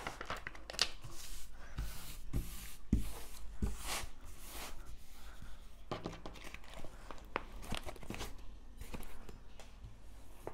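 Intermittent rustling and crinkling of a large diamond painting canvas and its paper backing liner as it is handled, with scattered short crackles and clicks.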